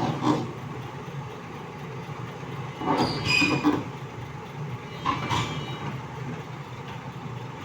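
A large crawler excavator's diesel engine running steadily while its steel tracks clank and squeal, with short metallic squeals three times, the loudest a little after halfway.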